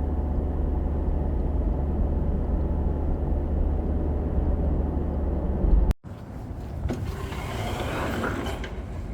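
A car's steady low rumble heard from inside the cabin, cut off abruptly about six seconds in. After the cut comes a quieter hiss with a few faint clicks.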